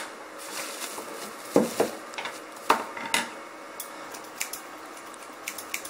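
Scattered light clicks and taps as small plastic hair-clipper accessories and a small pair of scissors are handled and set down on a wooden tabletop.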